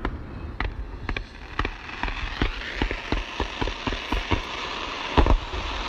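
Aerial firework shells bursting in a quick, irregular series of sharp bangs over a steady crackle, with the loudest bang about five seconds in.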